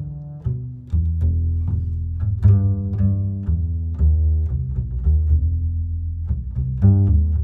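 Background instrumental music of plucked string notes that start sharply and fade, over a deep bass.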